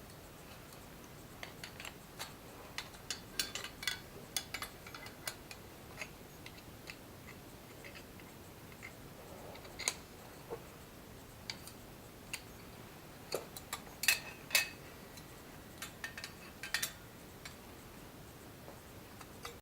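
Irregular light clicks and taps, coming in scattered clusters over a quiet background.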